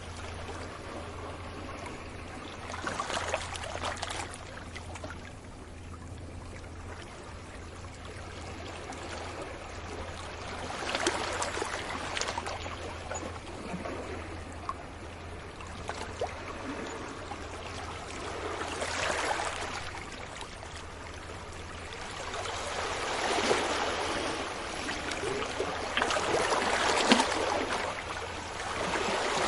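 Sea waves washing up on a beach, the surf swelling and fading in surges every several seconds and building louder near the end, over a steady low hum.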